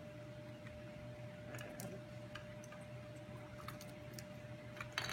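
Light clicks and taps of puzzle box pieces being handled and pulled apart, a few scattered knocks with the loudest just before the end.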